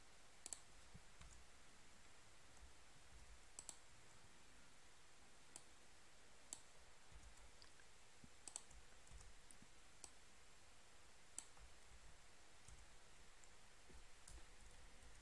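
Near silence with a faint hiss and about eight scattered single clicks, a second or more apart, from a computer mouse and keyboard used to edit code.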